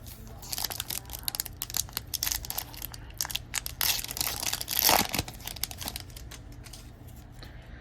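Wrapper of a hockey card pack being torn open and crinkled by hand: a dense run of sharp crackles that thins out over the last second or two.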